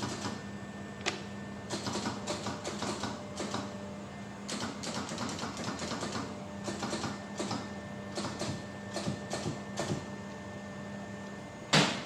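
Air-suspension crimping machine humming steadily, with irregular clicking and clattering as its die parts are handled. The hum stops near the end and is followed by one loud clank.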